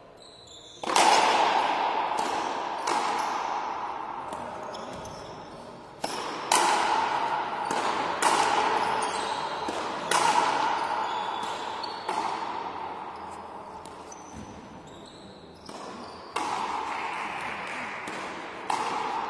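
Frontenis rally: the rubber ball is struck by rackets and smacks off the walls of a 30-metre fronton. There are about ten sharp cracks, a second or two apart, and each leaves a long ringing echo in the hall.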